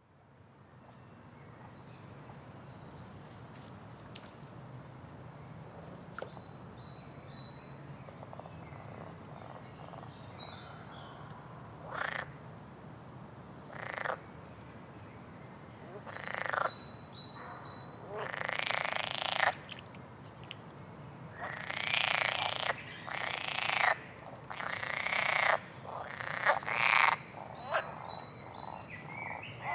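Frogs croaking in repeated bouts, sparse at first and then longer and more frequent from about twelve seconds in, over faint short high chirps and a steady low background.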